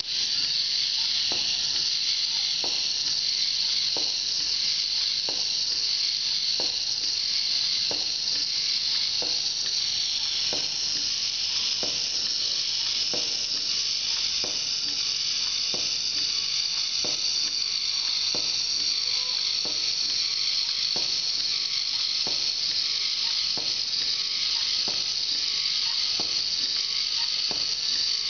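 K'nex Robo-Sting toy's small battery motor and plastic gears starting up suddenly and running steadily with a high whir as the creature walks. A light click repeats about every second and a third.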